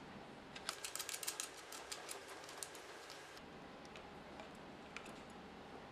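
A quick run of small sharp clicks lasting about two seconds, then a few scattered ticks, from a screwdriver working the screws of a speaker cable terminal.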